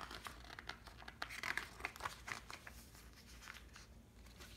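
Pages of a hardcover picture book being turned and handled: a run of faint paper rustles and crinkles, most of them in the first half.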